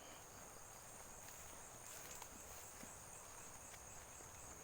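Faint, steady high-pitched chirring of insects such as crickets, with a few faint scattered ticks.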